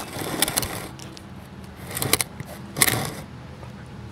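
A corgi nosing and bumping against the camera at close range: three bursts of clicking and rustling against the microphone.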